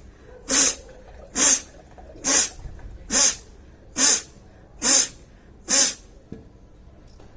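A person blowing hard out through the nose seven times in a steady rhythm, a little under a second apart, clearing the nostrils after sutra neti thread cleaning.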